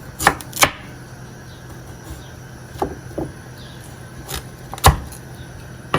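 A handful of short, sharp clicks and knocks of kitchen prep work with a knife on peeled root vegetables, coming in pairs, the loudest a little before the end.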